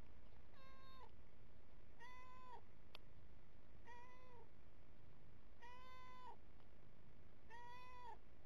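Domestic cat meowing five times, about once every two seconds, each meow a short, even cry that drops in pitch at the end.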